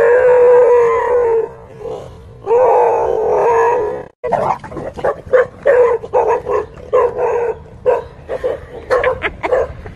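A dog gives two long, drawn-out cries, then barks sharply and repeatedly, about two to three barks a second.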